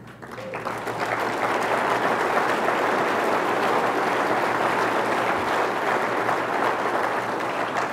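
Audience applauding, swelling over the first second and then holding steady, easing a little near the end.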